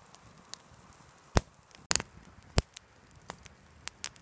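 Wood campfire crackling, with sharp irregular pops over a soft hiss; the loudest pops come about a second and a half in and again past two and a half seconds.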